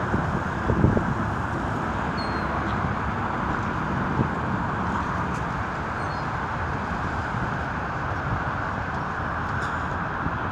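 Steady road-traffic noise, with a few faint, short bird chirps over it.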